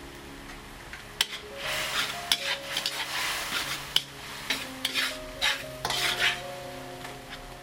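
A metal spatula stirring and scraping minced pork around a wok while the liquid in the pan sizzles. There are several long scraping strokes, with a few sharp metal clicks against the pan between them.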